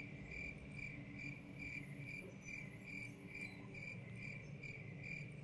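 A cricket chirping steadily, about two chirps a second, faint over a low background hum.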